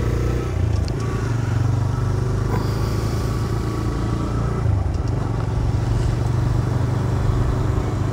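TVS Raider 125's single-cylinder engine running steadily as the motorcycle cruises, with wind noise over it.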